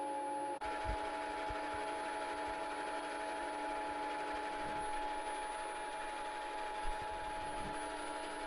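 Small milling machine running, its motor and gear drive giving a steady whine made of several held tones, with a few faint low knocks. It is set up to mill flat the worn tool-clamping face of a lathe tool post.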